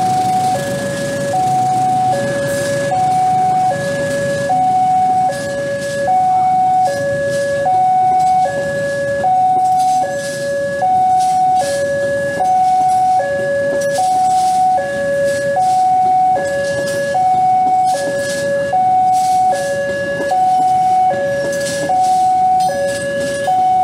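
A level-crossing warning signal sounds a steady two-tone chime, a higher and a lower note taking turns about every second, over the low rumble of a passenger train's coaches rolling past on the tracks.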